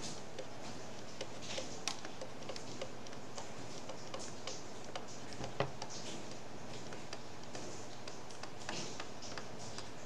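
Stylus tapping and scratching on a tablet surface during handwriting: a loose run of light ticks and short scrapes over a steady faint hiss.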